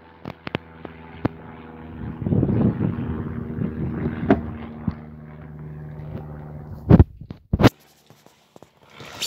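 Caravan entry door being worked: light clicks from the plastic door handle and latch, then two heavy thuds half a second apart as the door is opened and someone climbs inside. A steady distant engine drone and wind on the microphone run underneath.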